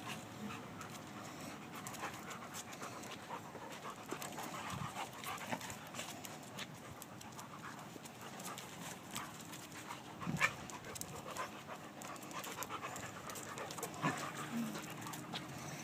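Two dogs, a beagle and a black dog, play-wrestling on concrete: panting and scuffling with many small clicks, and two short louder sounds about ten and fourteen seconds in.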